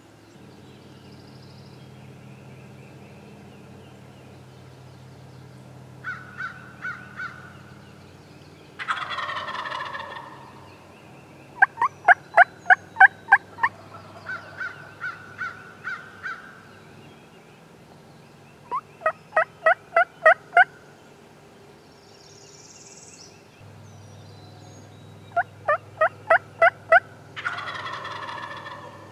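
Wild turkey gobbler gobbling twice, loud and close, about a third of the way in and near the end. Between the gobbles come several runs of quick, evenly spaced turkey yelps, each run a handful of notes.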